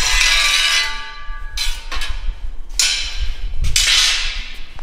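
Welded aluminium flashing frame being flipped over on a concrete floor: it clangs and rings at the start, then scrapes and knocks against the concrete three more times.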